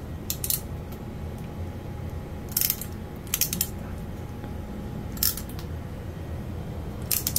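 RJ45 crimping pliers clicking in several short bursts, a second or two apart, as they are squeezed to crimp the connector onto the Cat6 cable.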